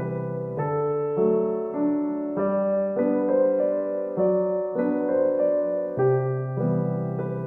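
Background piano music: a slow keyboard melody over held chords, the notes changing about every half second.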